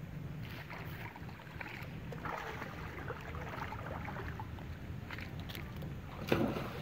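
Water sloshing and light splashing as monkeys swim and paddle in shallow water, over a steady low rumble, with a brief, louder burst about six seconds in.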